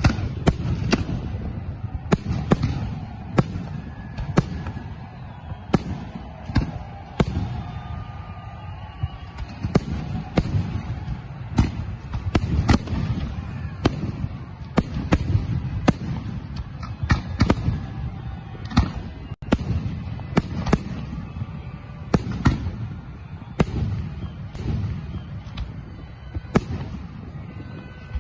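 Fireworks display: a steady barrage of sharp bangs from bursting aerial shells, one or two a second at uneven spacing, over a continuous low rumble.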